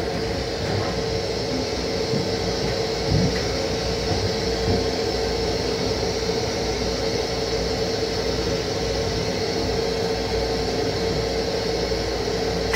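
Steady hum and hiss of an M7 electric railcar's restroom, the car's ventilation and running noise, with one constant tone over a low rumble. A light thump about three seconds in.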